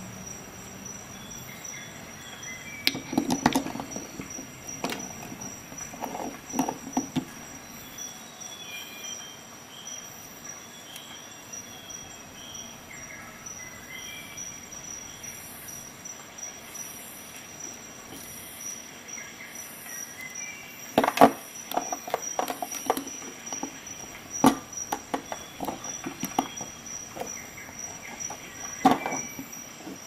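Handling noise of Victorinox Swiss Army knives: scattered clicks and knocks as the tools are handled and the knives are set down on a glass surface, in clusters a few seconds in, about two-thirds of the way through and near the end. A faint steady high-pitched tone sits underneath.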